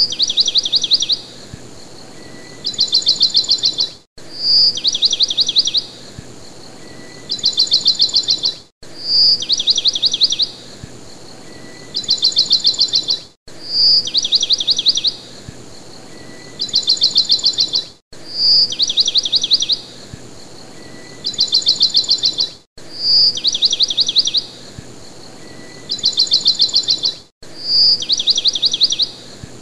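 Looped recording of birdsong: a single high chirp followed by two quick trills of rapid notes, repeating about every four and a half seconds with a brief cut between repeats, over a faint steady hiss.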